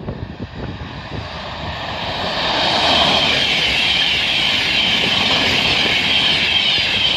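A train passing at speed on the main line, growing louder over the first three seconds and then holding a steady, loud rush of wheel and rail noise with a high hiss.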